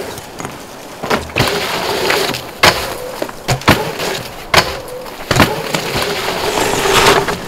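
Mountain bike rolling fast over a dirt trail: a steady hiss of tyres on dirt, broken by about six sharp knocks from the bike as it hits bumps and lands.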